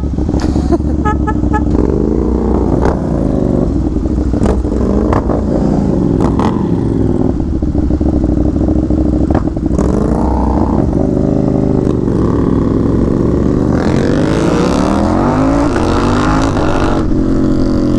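KTM 790 Duke's parallel-twin engine through a loud Austin Racing aftermarket exhaust, pulling away and accelerating through the gears. The pitch climbs about halfway through and again near the end as it revs out.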